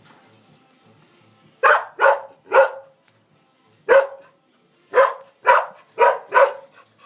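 Border collie barking: eight sharp barks, three in quick succession, a single one, then four more in a quick run.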